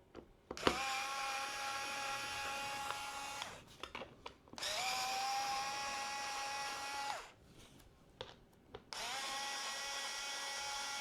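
Cordless electric screwdriver, set to speed level 4, running three times for about three seconds each with a steady motor whine that rises briefly in pitch as each run starts, backing out small pentalobe screws. Small clicks sound in the gaps between runs.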